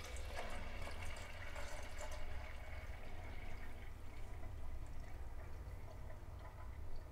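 Thin stream of water from a conventional foam-flow kitchen tap falling into a plastic measuring jug, a faint steady splashing as the jug fills.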